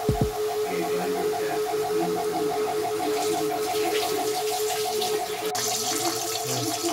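Potato sticks deep-frying in hot oil: a steady bubbling sizzle. Underneath run a steady hum-like tone and a quickly pulsing tone.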